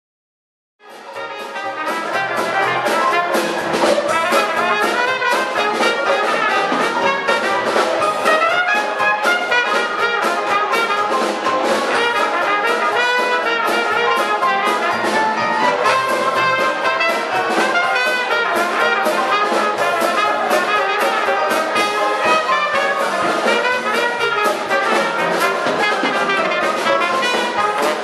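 Dixieland jazz band playing, with trumpet and trombone leading over the rhythm section; the music begins about a second in.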